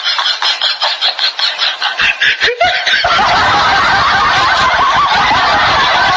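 Laughter: quick, rapid snickering that gives way about three seconds in to a denser, continuous stretch of laughing.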